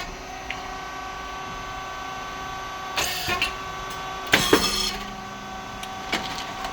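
Rice cake popping machine running, with a steady hum and several steady tones from its motor and hydraulic pump. Two short, loud, noisy bursts from the machine come about three and about four and a half seconds in.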